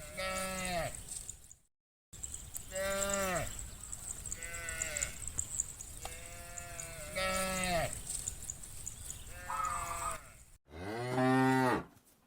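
Cows mooing: about six separate calls, some short and some drawn out, each falling in pitch as it ends, with the loudest call near the end. A steady high hiss runs underneath.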